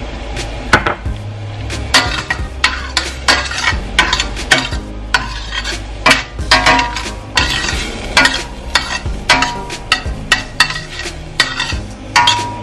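Metal spoon stirring and scraping diced onions and peppers sautéing in butter in a stainless steel pan: a quick irregular run of scrapes and clicks against the pan over a light sizzle.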